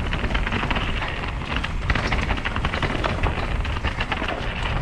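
Mountain bike riding fast over rock, its Michelin Wild Enduro tyres rolling on the rocky trail amid a constant rattle of short clicks and knocks from the bike. Wind buffets the microphone throughout.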